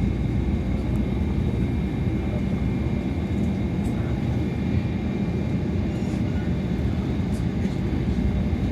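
Tama Monorail train running, heard inside the car: a steady low rumble with a faint steady whine above it.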